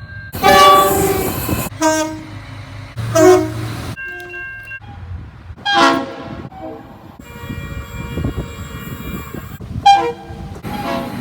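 A string of train horn blasts, about eight of them: mostly short blasts, with a long steady one held for about two seconds past the middle. The loudest blast comes near the start. Low train rumble runs underneath.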